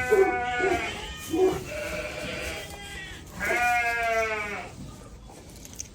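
Sheep bleating: a long bleat at the start, a fainter one after it, then another long bleat about three and a half seconds in.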